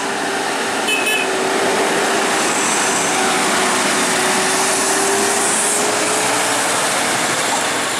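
Loaded cargo truck's diesel engine pulling hard up a steep grade close by: a loud, steady drone with one tone that rises slightly and fades near the end.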